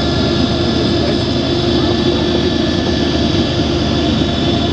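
Long container freight train rolling through the spiral tunnel curves: a steady, loud rumble with thin, steady high tones held over it.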